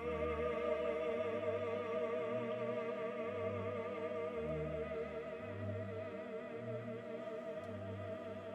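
Opera singing with orchestra: a long held sung note with wide vibrato, slowly fading, over low orchestral bass notes that change about every second.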